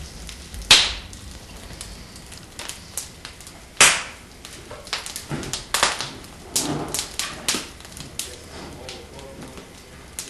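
Wood fire crackling, with irregular sharp pops; the two loudest pops come about a second in and about four seconds in.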